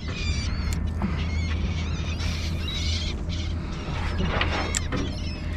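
Fishing reel being cranked as a plug is retrieved, a mechanical creaking, over a steady low rumble of wind, with seabirds giving short high calls over the feeding fish.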